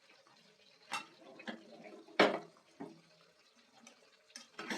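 Kitchen utensils knocking and clinking against a tawa as a cooked roti is handled: a handful of separate sharp taps, the loudest about two seconds in.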